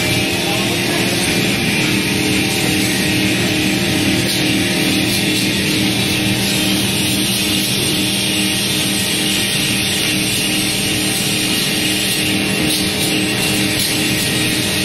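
Plywood paving line machinery running: a steady hum with a strong hiss, level and unbroken throughout.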